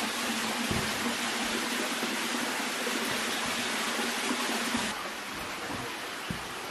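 Steady rushing hiss, a little quieter from about five seconds in.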